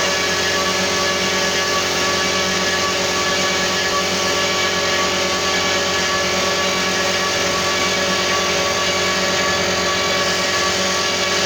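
CNC shoe-last turning machine (ML-F4R) running steadily as it cuts a shoe last, a constant machine noise with several held tones and no change in pitch or level.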